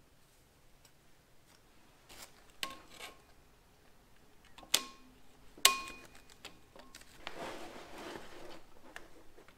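Steel clutch parts being handled against a flywheel: three sharp metallic clinks with a short ring, the last two loudest, then a longer scraping rustle as a pressure plate is set in place.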